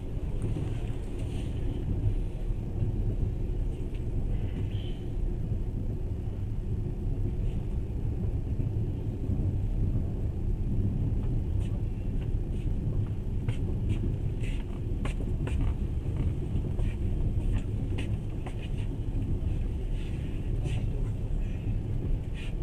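Moving train running with a steady low rumble, and a scatter of short sharp clicks and knocks in the second half.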